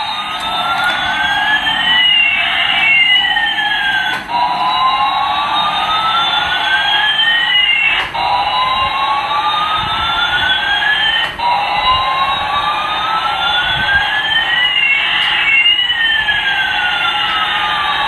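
Battery-operated toy airplane's electronic sound chip playing a siren-like effect: two tones sweep up and down past each other over a steady hum. The pattern restarts every few seconds.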